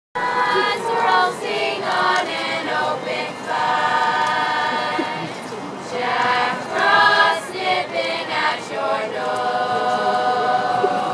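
Youth choir of young voices singing a cappella, with notes held in harmony.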